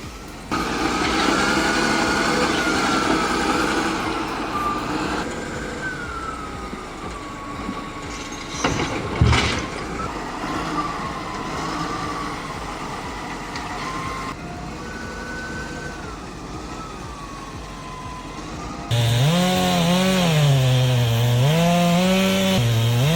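Several short clips of motorised cutting noise with a wavering whine, and one sharp crack about nine seconds in. Over the last few seconds a two-stroke chainsaw is revved up and down repeatedly.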